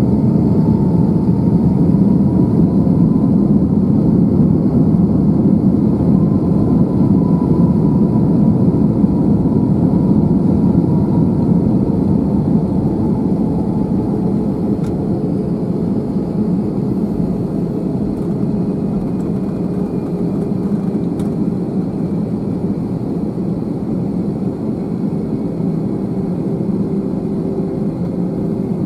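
Airbus A321 cabin noise on the takeoff roll: jet engines at takeoff thrust with a steady, heavy rumble, and a faint whine that rises slowly in pitch through the second half.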